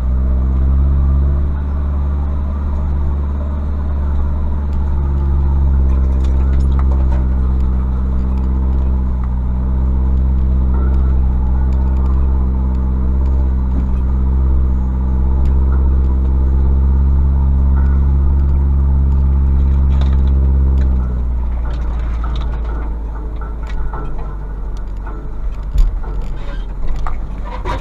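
Mazda B2500 pickup's WLT turbodiesel engine running at steady low revs while crawling along. About 21 seconds in the engine note drops away, leaving a quieter rough rustle and a few knocks, one loud thump near the end.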